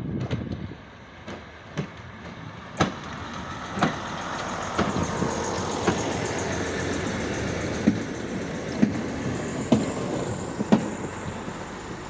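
WM-15A track maintenance motor trolley with a flatbed wagon passing at low speed while shunting: its engine runs steadily, and sharp wheel clicks come about once a second, loudest as it passes in the second half.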